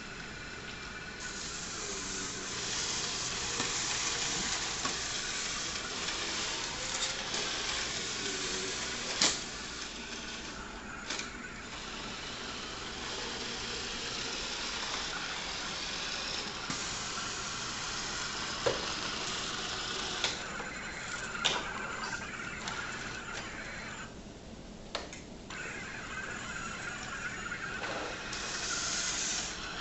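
Roomba robot vacuums driving about on a hard floor, a steady whirring hiss that swells and fades as they move, with a few sharp knocks as they bump into things.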